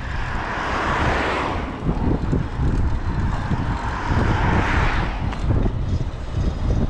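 Wind rumbling on a body-worn camera microphone while cycling, with two motor vehicles passing close by: a rising-and-fading whoosh about a second in, and another around four to five seconds in.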